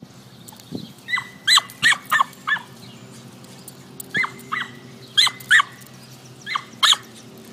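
Small dog yapping: about eleven short, high yips in three quick bursts, each yip falling in pitch.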